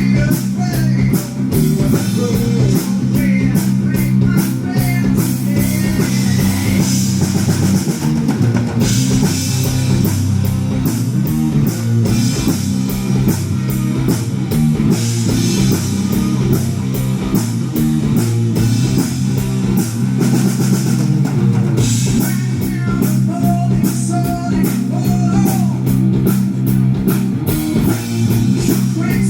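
Rock band playing live: guitar, bass and drum kit, with a steady cymbal beat under a melodic guitar line.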